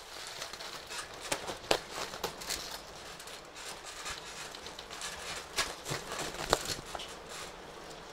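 Irregular knocks, thumps and rustling from people practising self-defence escapes on the floor, with a few sharper knocks standing out over a steady hiss.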